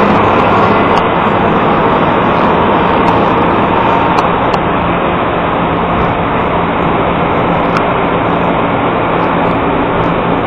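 Steady, loud rushing noise with a faint low hum running under it.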